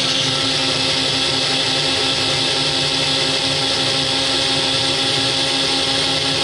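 Countertop blender running steadily, blending berries with honey and water into juice: an even motor hum with a whir over it.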